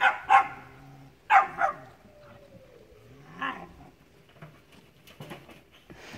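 Puppies barking with sharp yips: two quick pairs of loud barks, the first at the start and the second just over a second in, then a fainter one about three and a half seconds in.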